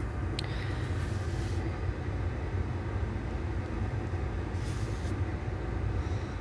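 Steady low background rumble, with two short soft scraping sounds of a palette knife moving over wet acrylic paint on canvas, about half a second in and again near the five-second mark.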